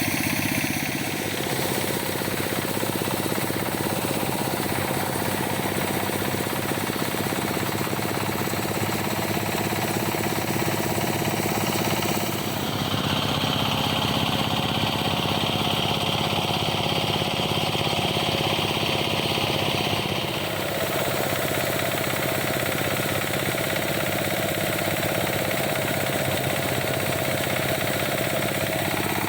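Small rice combine harvester running steadily, its engine and threshing machinery giving a continuous rapid mechanical rattle. A higher whine joins in for several seconds in the middle.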